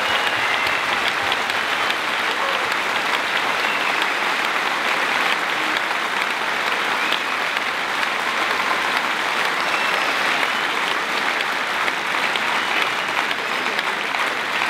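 Large audience in a sports hall applauding steadily.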